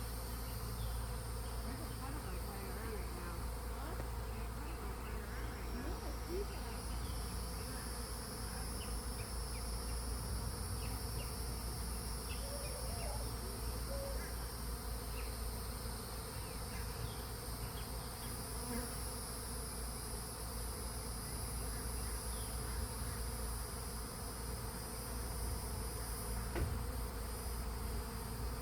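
Honeybees buzzing steadily around their hive. The colony is very active and agitated.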